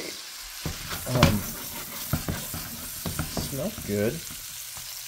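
Steak frying in melted butter in a frying pan: a steady sizzle, with a few light knocks about a second or two in. Short vocal sounds rise over it about a second in and again near the fourth second.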